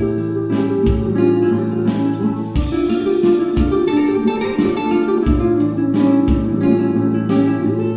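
Background music: strummed and plucked acoustic guitar with a steady beat.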